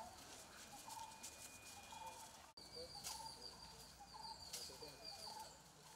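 Faint outdoor ambience with birds chirping over and over; the sound drops out for an instant about two and a half seconds in, then higher, faster chirping carries on.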